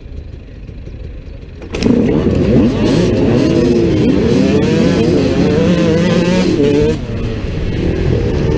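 Two-stroke dirt bike engines, including a KTM EXC 125, running at a race start. They idle at first, then about two seconds in several engines rev hard together, pitch rising and falling over one another, and ease off a little near the end.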